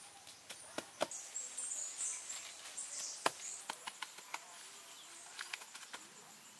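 Leaves and grass rustling as a leafy shrub and grass turf are handled and pressed into place, with a scatter of sharp clicks and taps, the loudest about one second and about three seconds in.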